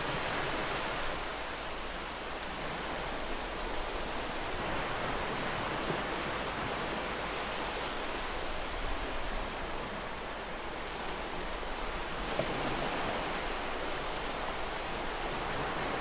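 Ocean surf breaking and washing on a beach: a steady rushing hiss that swells and eases gently a few times.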